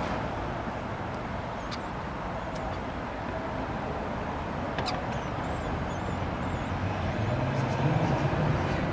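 Steady city background hum of traffic, with faint, thin, high chirps scattered through it and a few light clicks. A low engine drone swells near the end.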